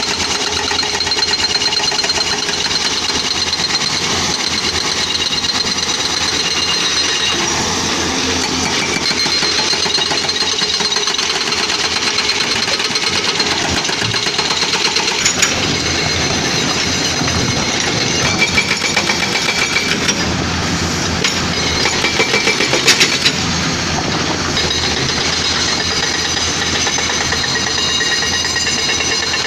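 Caterpillar 320D excavator's diesel engine running under load with its hydraulics working, and a stretch of rapid metallic knocking and rattling about halfway through.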